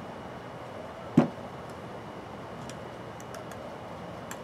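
A single sharp, hollow knock about a second in as a PVC pipe is set down upright on a wooden tabletop, followed by a few faint light clicks.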